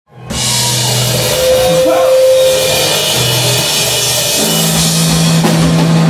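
Indie rock band playing live and loud, drums and amplified instruments cutting in abruptly just after the start. A held low note steps up to a higher one about four seconds in.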